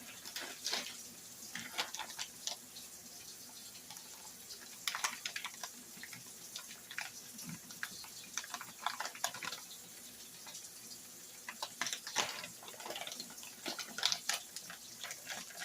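Oil and flour crackling and popping in a frying pan as a roux browns for gravy, with short irregular pops over a faint steady sizzle.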